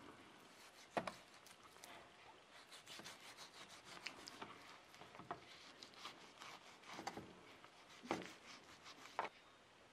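Knife cutting through a slab of salo (pork belly fat with its rind) on a wooden board: quiet scraping and crackling of the blade through fat and rind, with several sharper knocks as the blade reaches the board, the loudest about a second in and near the end.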